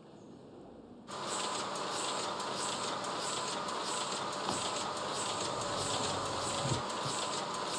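An industrial machine starts suddenly about a second in and runs with a steady whine and an even, rapid clatter.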